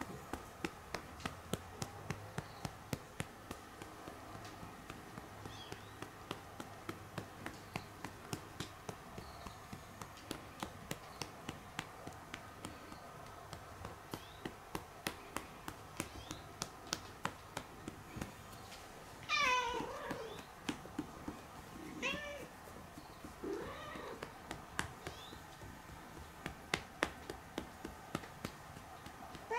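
A hand patting a cat's rump at the base of the tail, rhythmic pats about three a second. A cat meows loudly with a falling pitch about two-thirds through, then gives two shorter meows a few seconds later.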